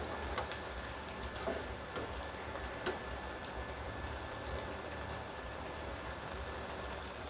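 Chaklis deep-frying in hot oil in a kadhai on a low flame: a steady soft sizzle with scattered small crackles, more of them in the first couple of seconds.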